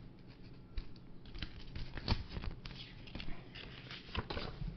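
Scattered light taps and clicks of hands handling a smartphone and its accessories, irregularly spaced.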